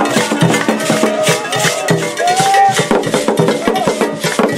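Music driven by shaken rattles and dense percussion, with a busy, steady rhythm and some pitched parts weaving over it.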